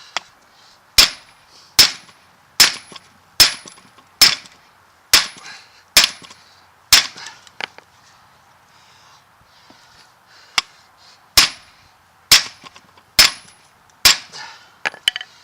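Hammer blows on steel, pounding a U-joint bearing cap out of a truck driveshaft yoke, with the cap starting to move. About eight sharp strikes come a bit over one a second, each with a brief metallic ring. A pause follows, then five more strikes and a few lighter taps near the end.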